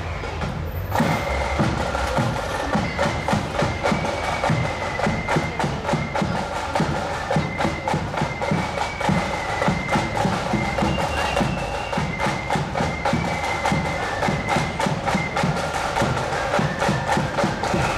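Marching band playing a tune while parading: a high-pitched melody carried over rapid side-drum strokes and a steady bass-drum beat, starting up about a second in.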